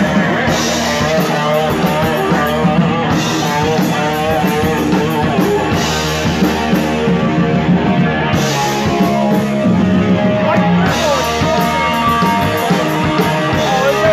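Live rock band playing: electric guitar over a drum kit, with a recurring accent about every two and a half seconds.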